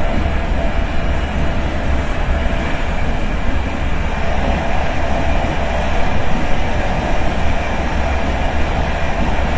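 Dutch intercity train running, heard from inside a carriage: a steady low rumble of the running gear under an even noise, with a faint steady hum and no distinct knocks or squeals.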